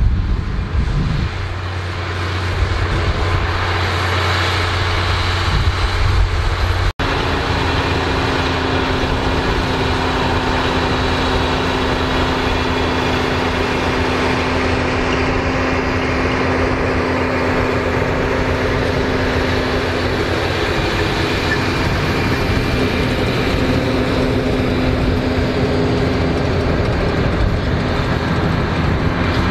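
Massey Ferguson 7480 tractor's six-cylinder diesel running steadily under load while it pulls a potato planter and front power harrow through the soil. There is a brief break about seven seconds in, and a steady drone after it.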